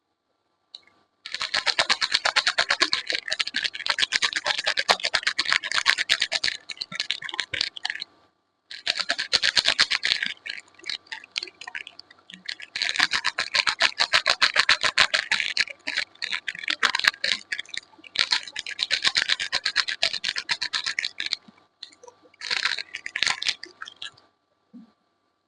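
Close-miked rapid scratching and scraping on soap. It comes in five runs of a few seconds each, separated by brief pauses.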